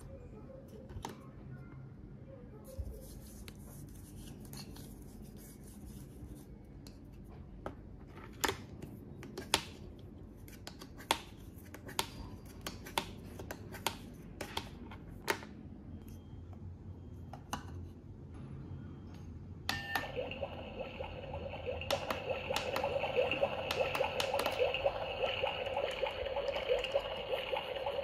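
Hard plastic toy kitchen pieces clicking and tapping as a plastic toy tomato is cut with a toy knife. About twenty seconds in, a steady watery hiss starts suddenly from the toy kitchen and keeps going.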